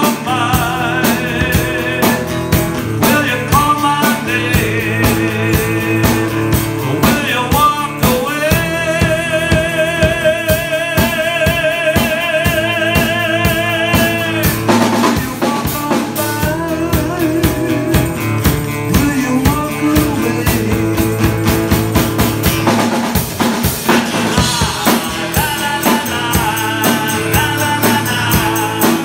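Live rock music: an acoustic-electric guitar strummed with a drum kit driving a steady beat, and a male voice singing. About a third of the way in, a long note is held for several seconds with a wavering vibrato.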